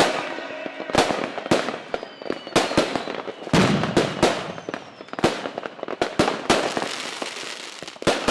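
Fireworks going off: a string of sharp bangs and pops, about a dozen, over a steady crackle, with a couple of faint falling whistles, growing quieter toward the end.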